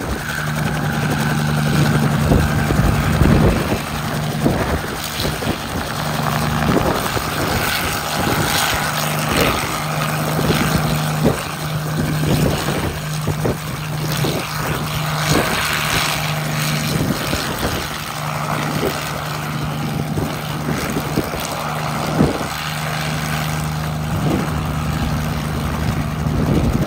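Hiller UH-12B helicopter's piston engine and rotors running steadily as it hovers low, a constant low hum under the rotor noise. Irregular gusts of rotor downwash buffet the microphone throughout.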